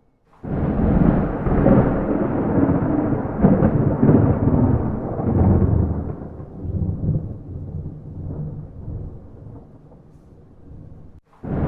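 Thunder with no rain: a clap starts suddenly and rolls and rumbles for several seconds, then fades away and breaks off abruptly. A second clap begins right at the end.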